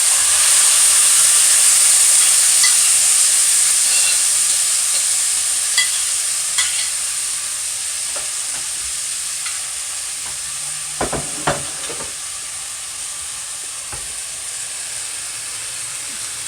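Chicken seasoning (pepper and garlic) sizzling as it fries in hot oil in a pot, the sizzle slowly easing off. There are a few light knocks partway through and again about two-thirds of the way in.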